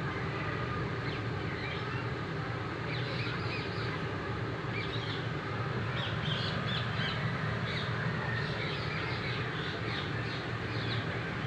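Outdoor bird calls: many short, high chirps and calls in scattered clusters, over a steady low background hum.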